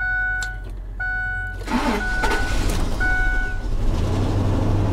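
2006 Ford F-350 Super Duty dash warning chime dinging about once a second as the engine cranks and starts about a second and a half in; the chime stops and the engine settles into a steady idle.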